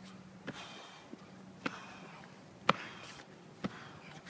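A man exercising on a hard floor: sharp short taps about once a second over faint breathing, with a faint steady hum behind.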